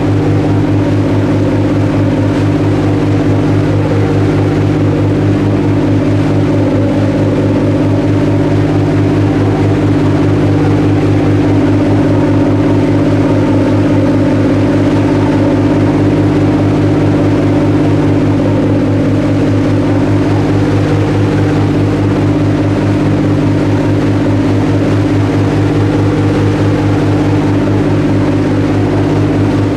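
Diesel engines of the Garinko icebreaking ship running at a steady cruise, a low even drone with a fine rapid pulse, over the rushing, churning water of the wake behind the stern.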